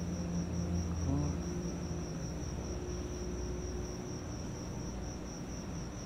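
Crickets chirping in a steady, high-pitched pulsing trill, with a faint low hum underneath that fades out partway through.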